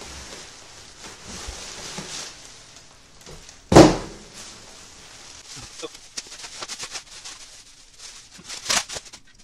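Bubble wrap and plastic packaging rustling and crinkling as a wrapped boom tripod is pulled from its box, with one sharp loud crack about four seconds in and another shorter crackle near the end.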